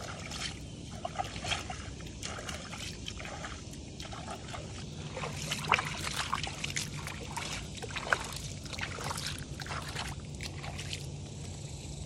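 Shallow river water splashing and sloshing in quick, irregular strokes as a hand scoops it over two landed alligator gar to wash the mud off them.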